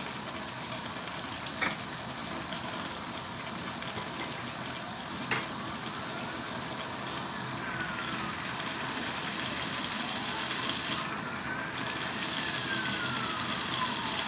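Cap cay vegetables simmering in a little broth in a nonstick wok, a steady sizzle, with two sharp clicks about one and a half and five seconds in.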